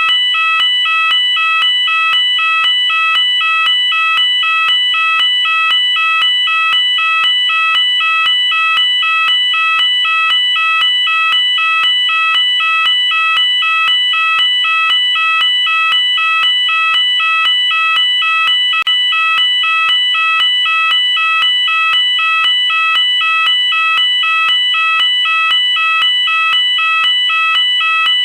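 Electronic fire alarm sounder going off continuously and loudly: a shrill tone that switches rapidly back and forth between pitches in an even, unbroken repeating pattern.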